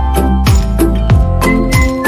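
Background music: an upbeat instrumental track with a steady drum beat under a melody.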